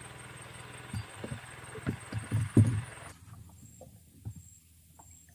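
Several low, muffled thumps over a steady hiss, the loudest about two and a half seconds in; about three seconds in the hiss cuts off and only a few faint clicks remain.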